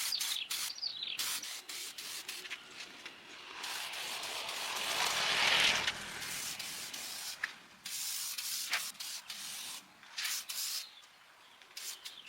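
Hissing spray in short on-off bursts, with one longer burst in the middle that swells and then cuts off.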